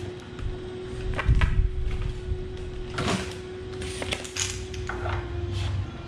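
Handling noise from a high-pressure hose and its metal fitting being fitted to a pressure washer's outlet: scattered clicks and taps, with dull thumps about a second in and again near the end. A faint steady hum runs underneath.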